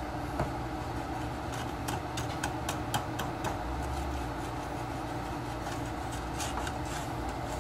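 Wooden spoon stirring melting sugar in an aluminium saucepan, with light clicks and scrapes as it knocks the pot, over a steady low rumble. The sugar is cooking down into caramel and is nearly done.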